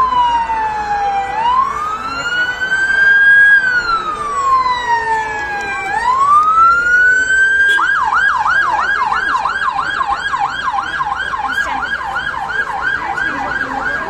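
Emergency vehicle siren sounding a slow wail that rises and falls twice, then switching about eight seconds in to a fast yelp of about three sweeps a second, which stops at the very end.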